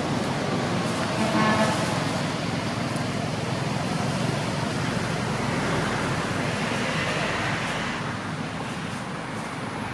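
Steady road traffic noise from passing motor vehicles, with a brief pitched sound about a second and a half in.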